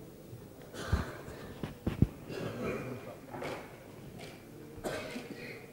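Quiet room tone of a large assembly chamber heard through its microphones: faint, indistinct voices, with two short low thumps about one and two seconds in.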